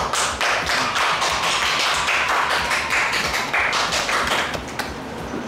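Hands clapping in quick, irregular applause over background music; the clapping stops near the end.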